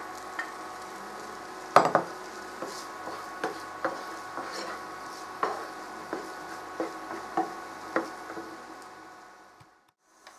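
Chopped onion sizzling in butter in a frying pan while a spoon stirs it, with many light knocks of the spoon on the pan and one louder knock about two seconds in. The sound fades out to silence near the end.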